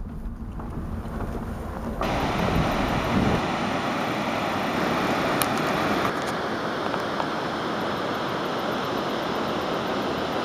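A car's low rumble as it drives a rough trail for about two seconds. Then an abrupt change to a steady outdoor rushing noise of river water and wind on the microphone.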